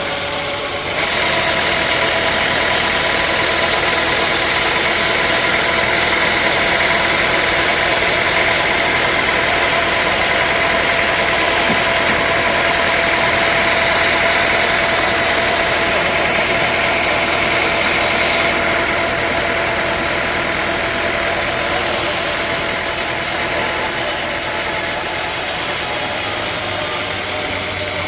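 Sawmill machinery running steadily. About a second in, a louder cutting noise comes in over it and lasts until about eighteen seconds, when it drops back to the machine's running sound.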